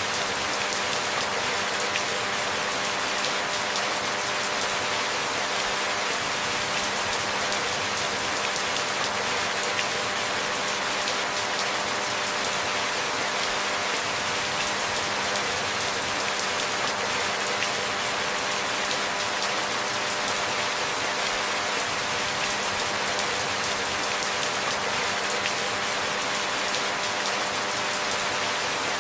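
Steady rain falling in an even, unbroken hiss, with no thunder or sudden drops, and a faint steady hum underneath.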